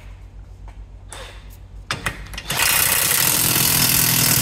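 Cordless impact wrench run up on the new rear hub nut of a wheel bearing, hammering it tight. It starts about halfway through and runs steadily for about two seconds, after a few light clicks.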